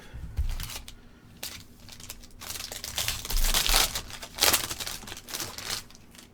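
Plastic trading-card pack wrapper being torn open and crinkled, with the cards handled. The crinkling comes in several spells and is loudest in the middle.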